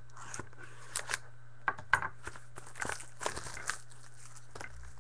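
The wrapper being cut and torn open on a sealed box of baseball cards: irregular crinkling and crackling with a few sharp snaps.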